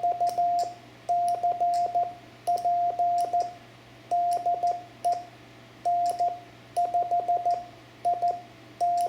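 Morse code (CW) being sent by an amateur radio operator, heard as the transceiver's sidetone: one steady mid-pitched beep keyed on and off in dots and dashes, in groups of characters separated by short pauses.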